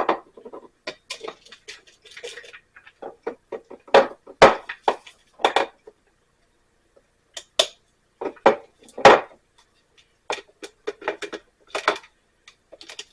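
Clinks, taps and knocks of kitchen ware and coffee-making gear being handled as ground coffee is readied for a drip coffee maker. The sounds are irregular, with a couple of louder knocks about four and nine seconds in.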